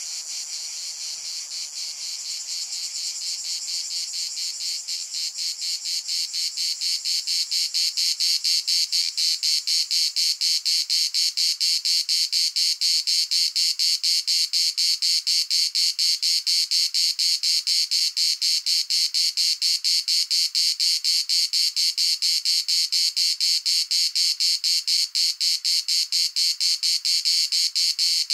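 Insect chirring: a high-pitched, rapidly and evenly pulsing trill that grows louder over the first several seconds and then holds steady.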